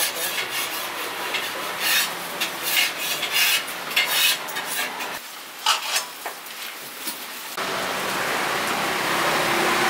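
Metal utensils scraping and clinking in a wok of hot oil, with the oil sizzling as shallot bread deep-fries. About five seconds in the sound changes suddenly, and near the end a steady sizzle takes over.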